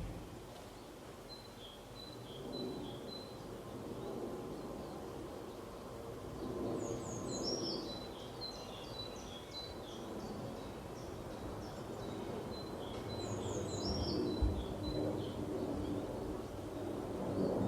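Small birds chirping and singing in short high phrases, with a fuller burst of song about seven seconds in and again about thirteen seconds in, over a steady outdoor background hiss.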